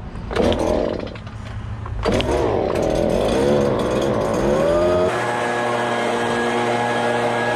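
Handheld two-stroke gas leaf blower starting and running, its engine pitch rising and dipping as the throttle is worked. About five seconds in the sound settles into a steady, even pitch.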